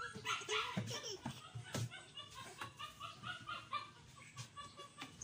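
A young child laughing in a run of short, quick giggles, with a couple of sharp knocks in the first two seconds.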